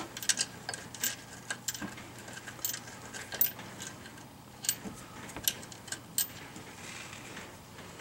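Scattered light metallic clicks and taps of bolts, washers, nut and hand tools being handled while a suspension bracket is bolted up, the loudest about three and a half seconds in.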